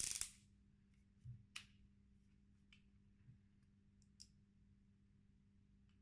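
Near silence with a faint steady hum, broken by a sharp click at the start and then a few faint clicks and taps as the driver drill and screws are handled. No drill motor is running.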